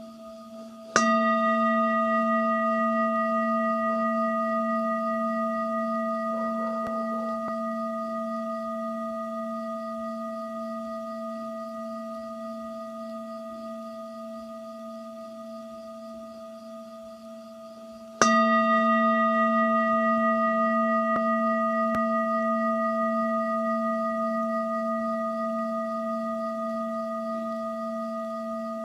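A singing bowl struck twice, about 17 seconds apart. Each strike rings on as a low hum with several higher overtones, pulsing slightly and fading slowly.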